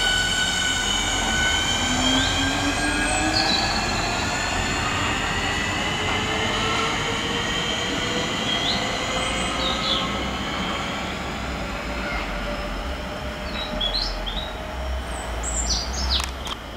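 Southeastern Class 465 Networker electric multiple unit running into the station: a layered electric traction whine falls slowly in pitch as the train slows, over the rumble of wheels on rail. Birds chirp briefly, and a few sharp clicks come near the end.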